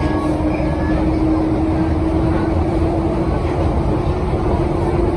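1972 Stock Bakerloo line tube train running along the track: a continuous loud rumble with a steady whine held at one pitch.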